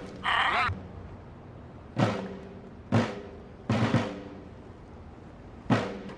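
Film soundtrack: a brief shrill sound just after the start, then heavy, resonant thuds, one about every second and a break before the last, each ringing on briefly like a drum hit.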